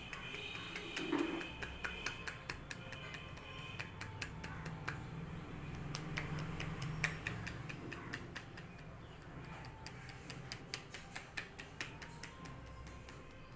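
Head massage: a steady run of sharp clicks and snaps, several a second, from hands working the hair and scalp, with faint background music underneath.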